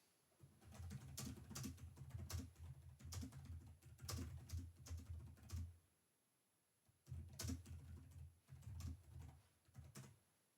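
Typing on a computer keyboard: quick runs of soft keystroke clicks, a first run of about five seconds, a pause of about a second, then a shorter run.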